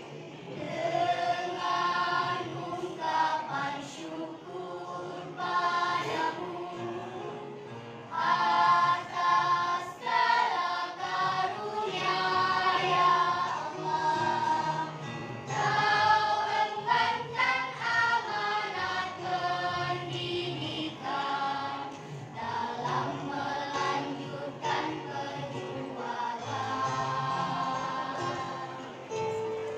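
A choir singing in several voice parts, phrase after phrase, over a low sustained accompaniment.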